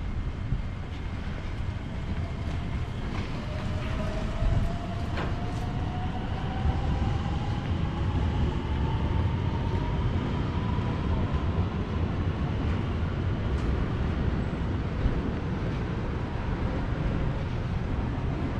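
Electric train pulling away, its motor whine rising slowly and steadily in pitch over several seconds above a steady low rumble.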